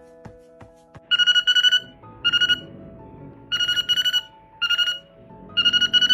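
A trilling, telephone-style electronic ring in five short bursts, over soft background music.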